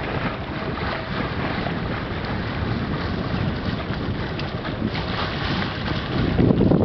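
Steady wind buffeting the microphone over the rush of water along the hull of a sailing yacht under way on choppy sea.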